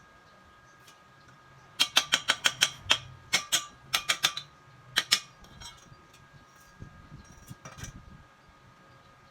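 Quick runs of sharp clicks or taps, about six a second, in three bursts, then a few softer knocks near the end, over a faint steady hum.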